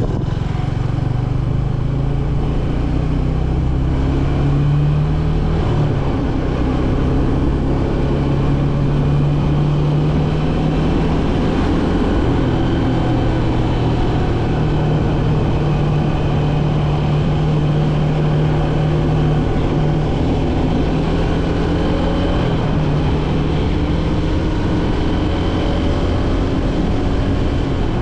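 Motorcycle engine running as the bike gathers speed, its pitch changing a few times, with the rush of wind on the microphone.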